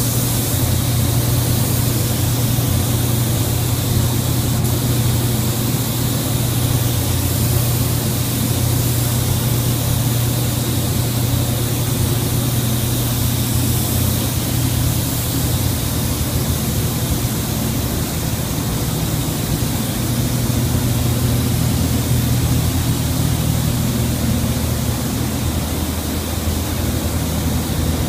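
Gravity-feed paint spray gun hissing steadily as it sprays paint onto a car body. The hiss switches on abruptly as the trigger is pulled, over a low steady hum.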